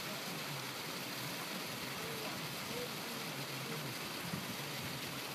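Steady rushing hiss of splashing water from a pond aerator jet, holding an even level throughout.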